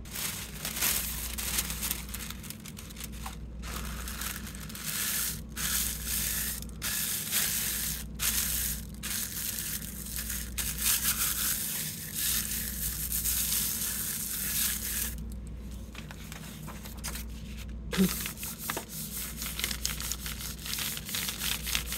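Thin Spectra art tissue paper rustling and crinkling as hands smooth and rub it down onto an inked gel plate, and later press through a sheet of plain paper laid on top. The rustling stops briefly several times, over a low steady hum.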